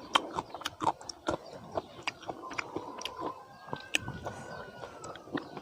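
Close-up mouth sounds of eating papaya salad with crab: wet chewing and crunching, broken by irregular sharp clicks and cracks.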